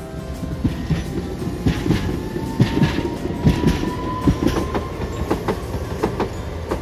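Hiroden articulated tram running past on ballasted track, its wheels knocking irregularly over rail joints and points. A thin squeal rises slowly in pitch through the middle of the pass.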